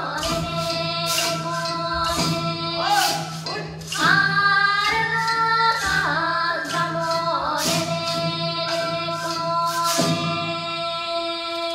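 Japanese folk dance song: group singing over held accompanying tones and a low steady drone, with the dancers' binzasara wooden clappers clacking at a regular beat.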